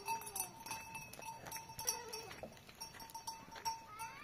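Sheep or goat flock bleating, with two short bleats, one at the start and one about two seconds in, over a run of repeated light clinking from livestock bells.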